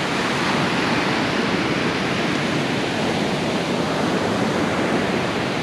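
Sea surf washing on the beach: a steady rush of waves with no let-up.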